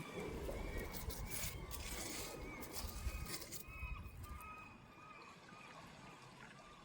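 Wind and sea rumbling on a rocky shore, easing off over the last couple of seconds, with a bird calling in short, repeated, arching notes.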